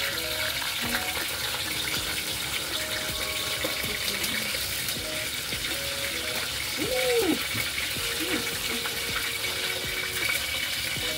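Hot oil sizzling and crackling steadily in a pot as green peppers deep-fry.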